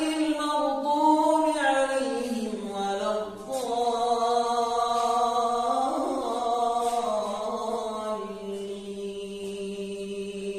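A man reciting the Quran in melodic tajweed style, unaccompanied, with long held notes that glide and turn in pitch. There is a brief break for breath about three and a half seconds in before the next phrase.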